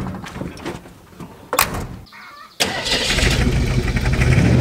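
Old Jeep pickup truck: a door thumps shut about one and a half seconds in, and a second later the engine catches and keeps running steadily and loudly.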